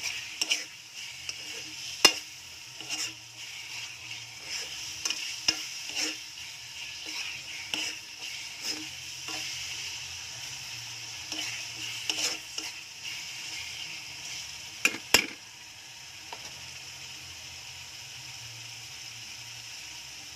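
Bagoong alamang (shrimp paste) with pork and chillies sizzling in oil in a metal wok, with a spatula scraping and clacking against the pan as it is stirred. Two sharp knocks come about fifteen seconds in, after which the stirring stops and only the steady sizzle goes on.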